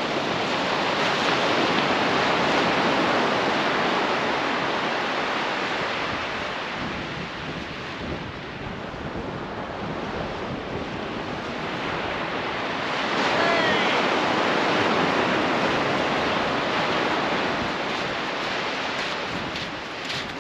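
Sea surf washing on a shore, mixed with wind buffeting the microphone, swelling louder near the start and again about two-thirds through.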